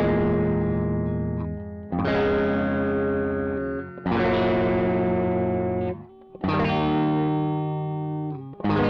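Electric guitar played through a Caline 'British Sound' distortion pedal set with every knob at 12 o'clock: distorted chords struck about every two seconds and left to ring, with brief drops between them.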